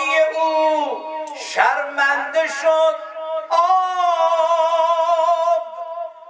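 A man singing a Persian maddahi, a Shia religious eulogy chant, solo into a microphone: ornamented, wavering phrases, then one long held note with vibrato from about three and a half seconds in.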